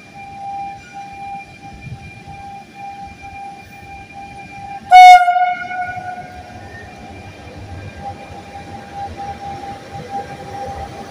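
Trenitalia E.464 electric locomotive moving slowly with a steady high whine, sounding one short, very loud horn blast about five seconds in.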